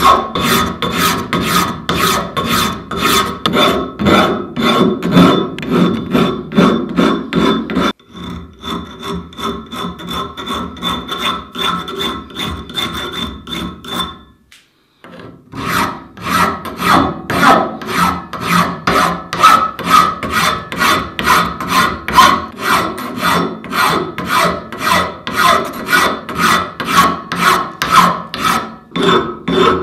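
Hand files rasping across the metal edges of a shear's jaw in quick repeated strokes, several a second. The strokes turn quieter about eight seconds in, stop for a moment around halfway, then resume louder.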